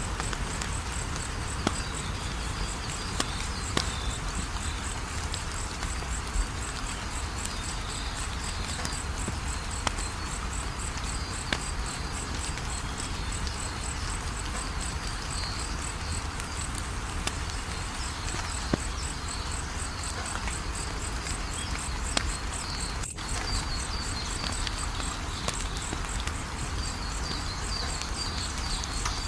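Wood fire crackling, with scattered sharp pops over a steady low rumble. Crickets chirp alongside in a fast, even, pulsing rhythm.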